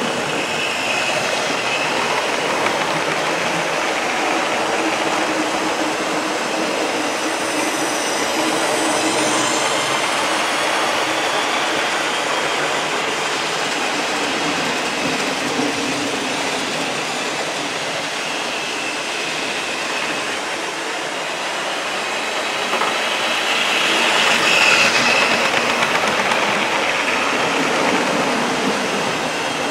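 OO gauge model trains running along the track: a steady whirring and rattling of locomotives and coaches on the rails. It swells louder about three-quarters of the way through as a train passes close.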